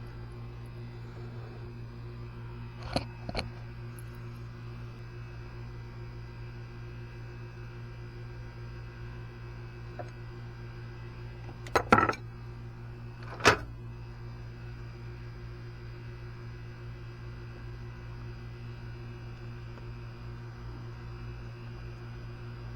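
Steady low electrical-sounding hum, broken by a few short, sharp knocks: two close together about 3 s in, a louder cluster near 12 s and a single one near 13.5 s.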